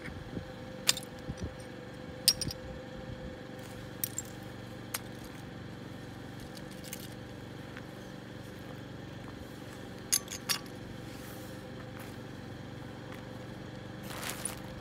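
Glass bottles clinking as they are set down in a plastic carrier bag on asphalt: a few separate sharp clinks, with two close together about ten seconds in, over a steady background hum. A brief rustle comes near the end.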